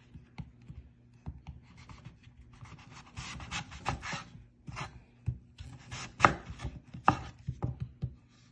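Kitchen knife slicing a raw breadfruit into thin slices on a wooden cutting board: scraping cuts through the firm flesh and irregular sharp taps of the blade on the board, the loudest a little past the middle.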